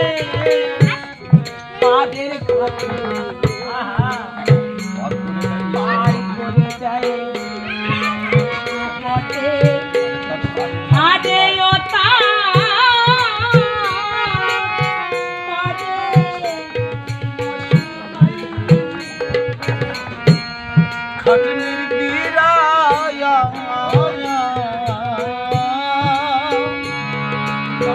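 Bengali Hari sangeet folk music: a wavering, vibrato-laden melody line over a steady drum rhythm.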